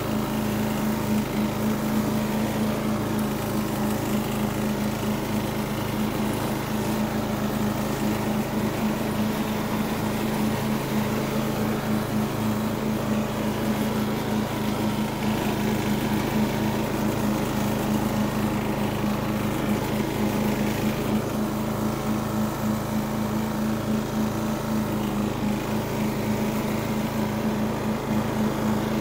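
Riding lawn mower's engine running steadily while mowing, holding one even engine note throughout.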